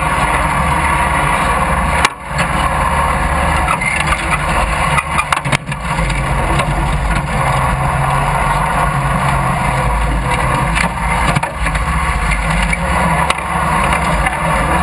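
Riding lawn mower's engine running steadily and loud while the mower drives, with brief dips in level about two seconds in and again around five seconds in.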